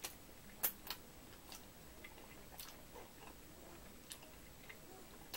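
Faint eating sounds of a person slurping in and chewing ramen noodles: a scatter of soft, wet clicks and smacks, the sharpest a little under a second in.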